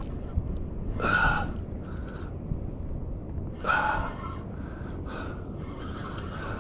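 A man breathing hard in short, loud gasps and exhales while fighting a hooked fish on rod and reel, two strong breaths and several softer ones, over a steady low rumble.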